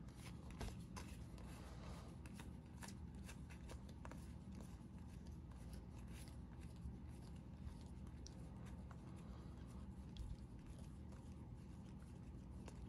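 Faint rustling and light clicks of trading cards being handled and sorted.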